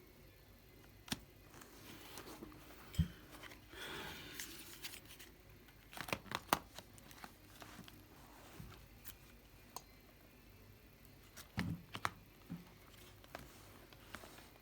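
Hands working on a laptop's parts: scattered sharp clicks and taps, a scraping rustle about four seconds in, a quick run of clicks around six seconds, and a low thump near three seconds and again near twelve.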